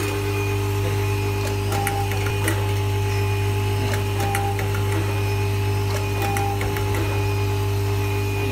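Vibratory bowl feeder of a nylon cable-tie binding machine running with a steady low hum, with scattered light clicks from the ties and mechanism.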